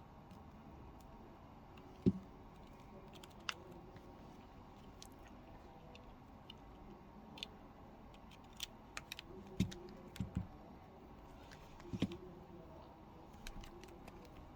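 Scattered light clicks and taps with a few soft knocks, from a smartphone's small parts and tools being handled and pressed together during reassembly.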